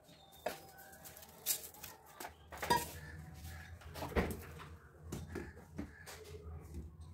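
A few sharp knocks and clinks from a stainless steel bowl set on a stone counter and garlic bulbs dropped into it, the loudest about halfway through, over a low steady hum.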